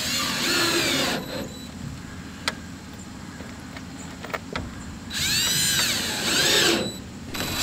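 Cordless drill with a right-angle attachment driving screws through a new window's mounting flange into the wall framing. It runs twice, for about the first second and again for nearly two seconds from about five seconds in, its whine rising and falling with the trigger.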